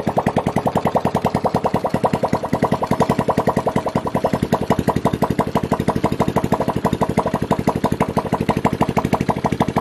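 Honda C-series single-cylinder four-stroke motorcycle engine running steadily at idle, an even rapid pulse of about eleven firing beats a second.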